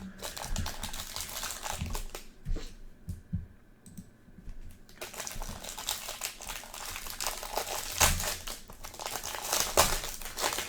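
Plastic trading-card pack wrappers crinkling and rustling as the packs are handled and opened. There is a quieter stretch about three seconds in, then the crinkling resumes.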